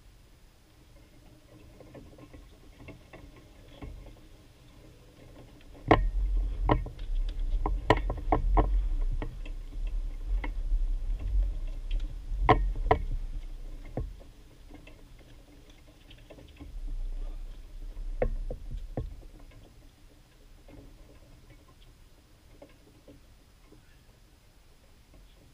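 Tennis rally on a hard court: sharp pops of racket strings hitting the ball, the loudest cluster in the middle, two more near the end of the rally. A low rumble runs under the hits.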